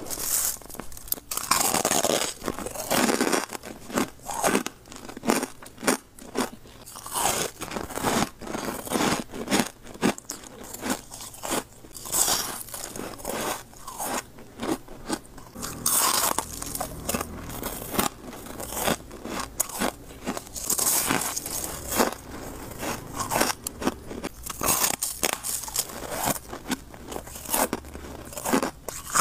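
Freezer frost being bitten and chewed close to a microphone: repeated irregular crunches of soft, snowy ice, with quieter chewing between bites.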